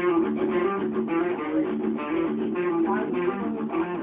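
Guitar being picked, a run of single notes and chord tones at several notes a second.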